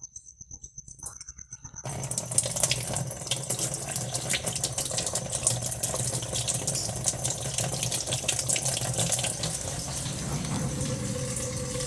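Water running steadily through a washing machine, starting suddenly about two seconds in, with a low hum underneath.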